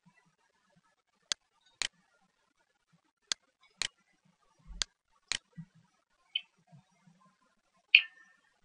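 Computer mouse button clicking: four pairs of sharp clicks, the two clicks in each pair about half a second apart, while a program is being opened.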